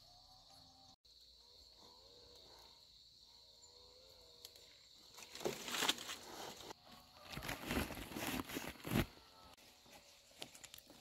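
A steady high insect drone, then from about five seconds in several seconds of loud, irregular rustling and crackling of branches and leaves, as shoots are picked from a shrub by hand.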